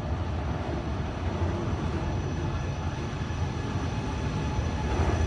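Trenord ETR425 electric multiple unit (an Alstom Coradia Meridian) rolling slowly into a station. It is a steady low rumble with a faint thin whine, growing a little louder near the end as it comes closer.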